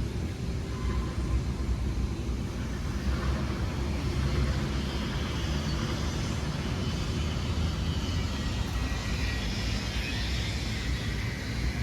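Steady low rumble of vehicle traffic, with a rushing hiss in the higher range that builds from about three seconds in.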